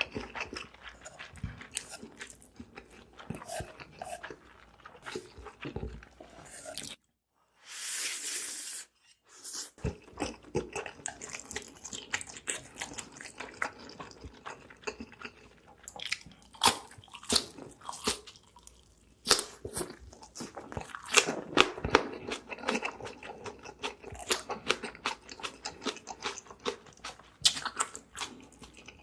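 Close-miked chewing and eating: a steady run of crisp wet mouth clicks and crunching bites, with a brief hiss about eight seconds in and denser crunching in the second half.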